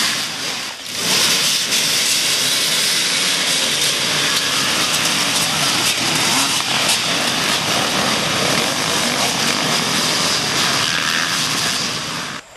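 Off-road dirt bike engines running amid a loud, steady rush of noise. The noise dips briefly about a second in and again near the end.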